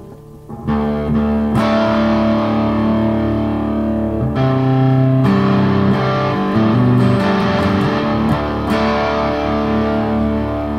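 2013 Gretsch White Falcon G6136T hollow-body electric guitar played on its neck Filtertron pickup with a little overdrive, chords held and ringing, changing every second or few.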